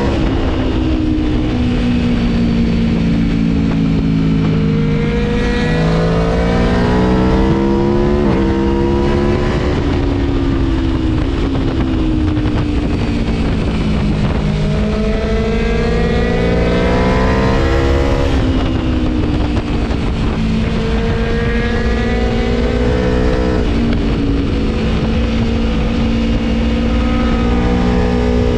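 Tuned Aprilia Tuono V4 1100 motorcycle engine under hard riding, its pitch climbing under throttle and dropping back again and again as it is ridden through the gears and bends.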